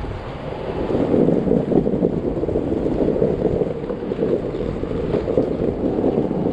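Wind buffeting the microphone of a camera riding on a moving electric skateboard, over the steady rumble of the board's wheels on asphalt.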